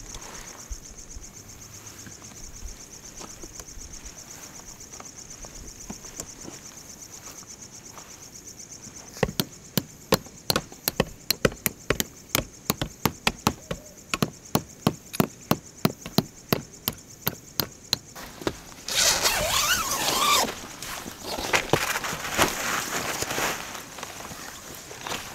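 Crickets chirping steadily, then about nine seconds in a quick run of hammer blows driving metal tent stakes into the ground, about three a second, for some nine seconds. Near the end, rustling of tent fabric.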